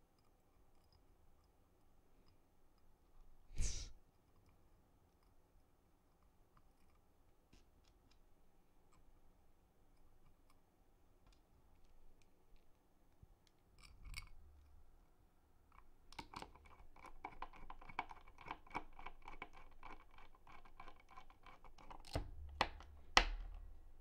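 Small screwdriver and tiny screws working on a KBDPad MKII number pad's case. A single sharp click about four seconds in, then from about sixteen seconds a dense run of light clicks and scraping, with two knocks near the end.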